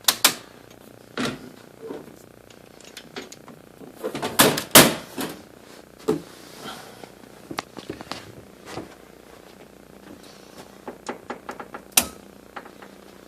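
Scattered clicks and knocks of hands working on an air handler, with a louder cluster of knocks about four and a half seconds in and a sharp click near the end, over a faint steady hum.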